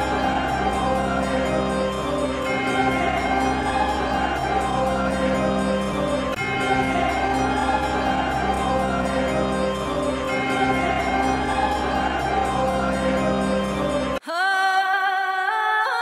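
Background music with sustained layered chords over a steady low bass. About fourteen seconds in, it cuts abruptly to a sparse passage of rising synth glides with the bass gone.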